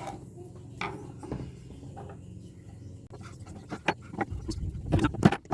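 Scattered knocks and clatter of metal scrap connectors being handled and sorted, growing busier and louder in the last second or so.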